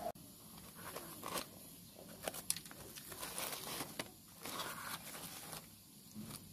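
Light rustling and crinkling with scattered small clicks, in several short spells, as things are handled on a table.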